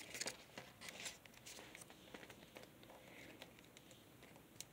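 Faint rustling and creasing of origami paper being folded and pressed flat by hand, with scattered soft clicks, busiest in the first second or so.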